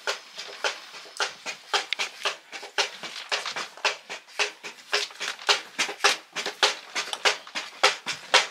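Dried soybean plants being threshed by hand, the brittle pods cracking and rattling in irregular sharp snaps, several a second.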